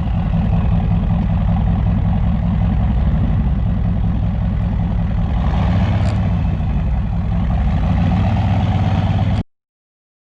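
Chevy 6.5-litre turbo-diesel V8 idling steadily through a 4-inch straight pipe, with a faint turbo whistle falling in pitch in the first second. The sound cuts off suddenly near the end.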